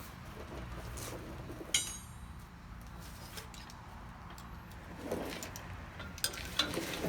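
A metal tool or part strikes metal once with a short ringing clink, followed later by a few lighter clicks and knocks of handling work.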